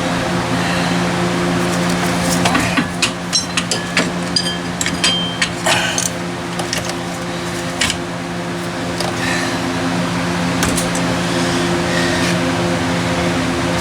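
Metal hand tools and bolts clinking and tapping during engine disassembly: a quick cluster of sharp clicks, some ringing briefly, a few seconds in, with single clicks later. Underneath is a steady hum.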